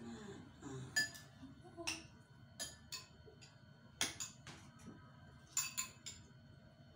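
Metal spoon and fork clinking against a plate and a small bowl of stew while eating: scattered sharp clinks, roughly one a second, some ringing briefly.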